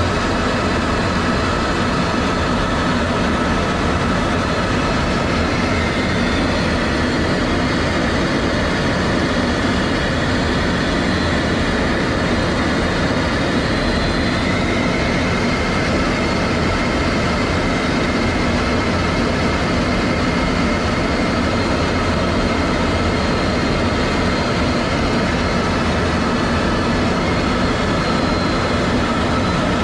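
Steady, loud machine noise with a deep rumble and faint high whining tones that shift slightly in pitch about halfway through.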